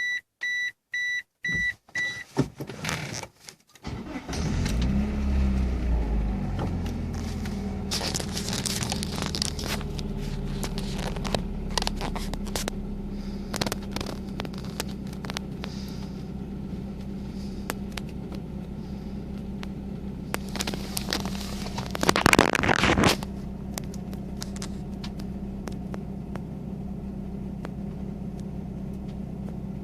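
Eagle Talon's four-cylinder engine cranked and catching about four seconds in, after a run of fast electronic beeps, then idling steadily. A louder rushing noise rises over the idle for about a second, about three quarters of the way through.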